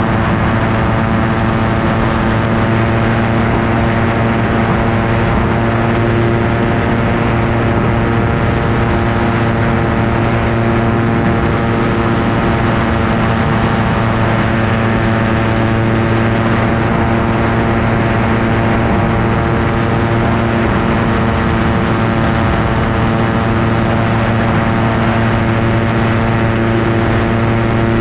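Ultralight aircraft engine and propeller running at steady cruise power in flight: a constant, even drone whose pitch does not change.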